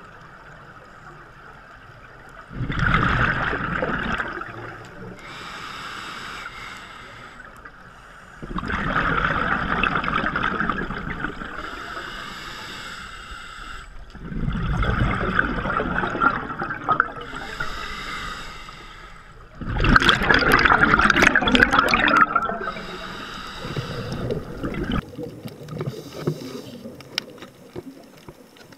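Scuba diver breathing through a regulator underwater: four loud bursts of exhaled bubbles about six seconds apart, with a quieter hiss of inhaling between them. Fainter crackling near the end.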